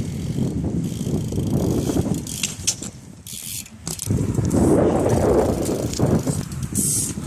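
BMX bike being ridden at a trick attempt: tyres rolling on pavement with rumbling wind on the microphone. There are a few sharp clicks and rattles a couple of seconds in, and the rolling noise swells again past the middle.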